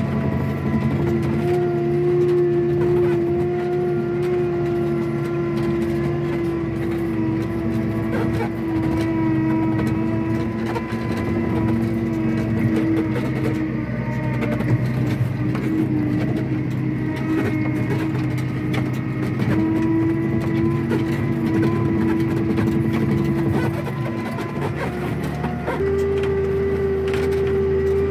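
Farm tractor's diesel engine running steadily under way. Its note shifts slightly a few times and steps up to a higher, fuller pitch near the end.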